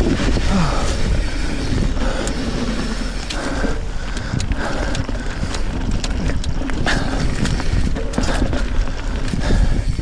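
Trek Fuel EX 7 mountain bike riding singletrack: knobby tyres rolling over sandy dirt, with the chain and frame rattling in many quick clicks and knocks over a steady low rumble.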